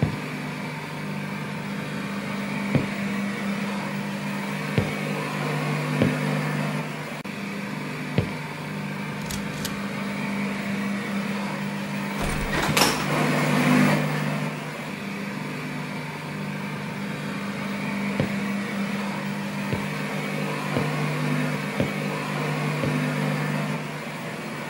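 Low droning suspense underscore: two steady humming tones that drop in and out over a hissy wash, with faint sharp ticks every couple of seconds and a brief swell about thirteen seconds in.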